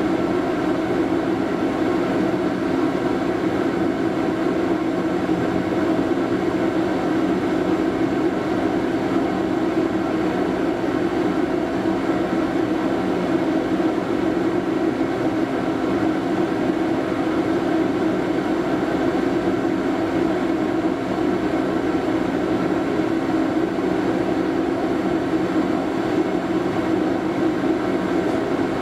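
Interior sound of a Toyama Chihō Railway 0600-series (Portram) low-floor tram: a steady hum with several held tones over a rough rumble, with no change in pitch or loudness.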